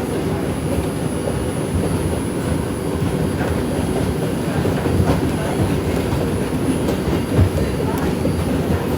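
A New York City subway 5 train running along the track, a steady rumble with a few light clicks of the wheels.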